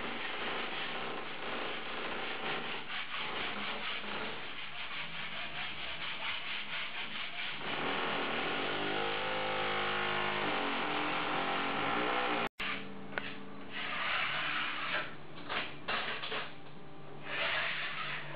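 Hand rubbing and smoothing wallpaper against a wall, a continuous rubbing and rustling. A steady pitched hum joins in for a few seconds past the middle, and after a brief break the rubbing comes in uneven strokes.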